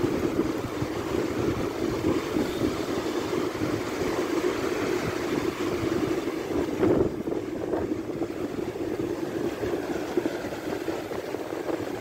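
Surf breaking offshore and washing up a sandy beach: a steady rush of waves and foam. A brief thump comes about seven seconds in.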